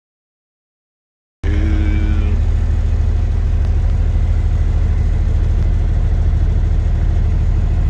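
Silence for about a second and a half, then a semi truck's diesel engine idling with a steady low rumble; a brief tone sounds just as the rumble begins.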